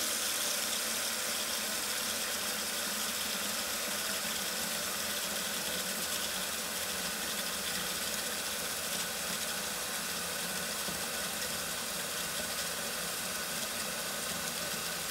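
A steady hiss with a faint hum, unchanging throughout, with no distinct events.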